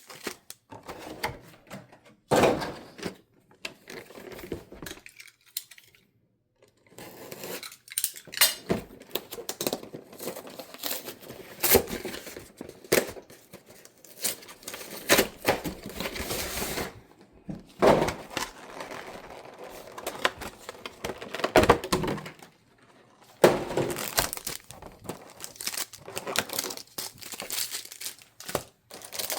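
Cardboard trading-card boxes being opened and their foil-wrapped card packs pulled out: wrappers crinkling, cardboard tearing and light knocks, in irregular bursts with a couple of short pauses.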